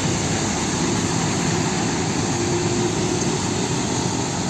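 Diesel engine of a Hino 500 series dump truck running steadily as the truck drives along a wet road.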